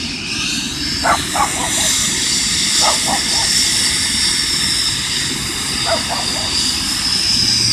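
Medical helicopter running on the ground, a steady high turbine whine over rotor and engine rumble. A dog barks in short pairs and triplets a few times.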